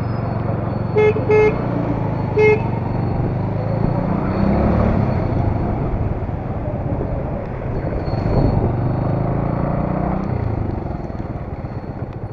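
Single-cylinder engine of a Bajaj Avenger 220 motorcycle running steadily, with three short beeps of a horn about a second in.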